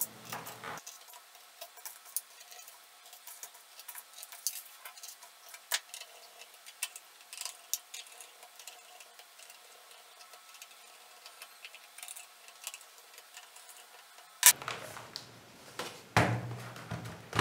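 Small screwdriver fastening screws into a laptop's plastic bottom cover: scattered light ticks and clicks. A louder knock comes near the end as the laptop is turned back over onto the desk.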